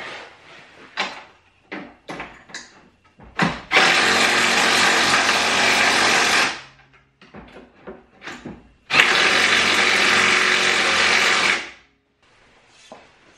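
Handheld cordless power tool driving fasteners in two steady runs of about three seconds each, each starting and stopping abruptly. A few short clicks and knocks of parts being handled come before the first run.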